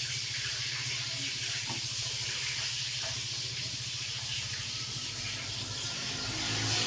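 Polytron refrigerator compressor running to pump air out of the system through an open tube, a steady hiss of escaping air over a low hum: the 'body vacuum' method of evacuating a fridge without a vacuum pump.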